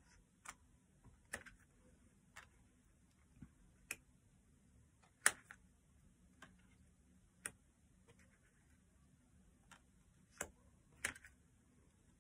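Thick oracle cards being laid one by one onto a pile on a wooden table: a faint tap or click as each card lands, a dozen or so at uneven intervals, the loudest about five seconds in.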